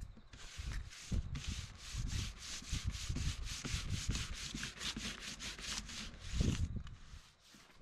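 A hand rubs a sheet of printed paper back and forth over a freshly spray-painted board in quick, even strokes, several a second, pressing the paint into texture. The rubbing stops shortly before the end.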